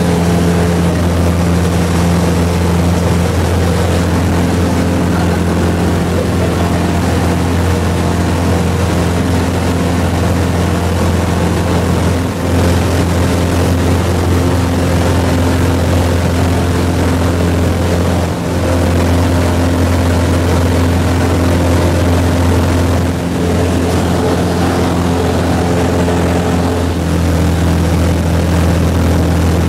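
Single-engine floatplane's piston engine and propeller running steadily at high power, heard from inside the cabin during the takeoff from the water and the climb-out.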